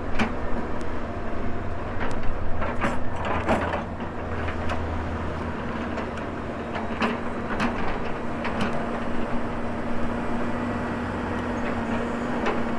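Volvo excavator's diesel engine running steadily under load, with intermittent sharp metallic clanks and knocks from the working machine.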